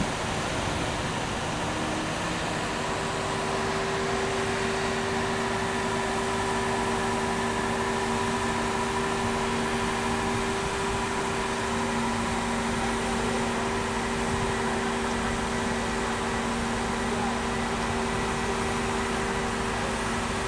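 Crane machinery running steadily under load as it lifts a chiller unit: a constant mechanical hum with a couple of steady whining tones, one of which drops out about halfway through.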